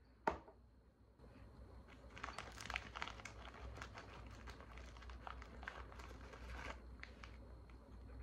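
A sharp tap just after the start, then the plastic cookie bag crinkling and crackling for several seconds as it is handled, with a few small clicks near the end.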